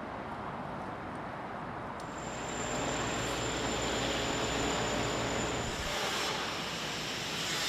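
Urban traffic noise that gives way abruptly, about two seconds in, to louder construction-site machinery: an engine rumble with a thin high steady whine, the rumble stopping near the six-second mark.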